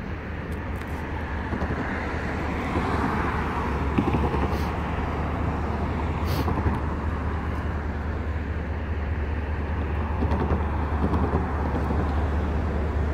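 Road traffic: cars passing close by on the road, the noise swelling and fading as each goes by, over a steady low rumble.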